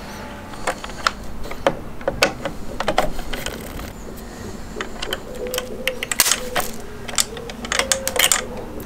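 Irregular small metallic clicks and taps of a screwdriver working the battery terminal screws in a motorcycle's battery box.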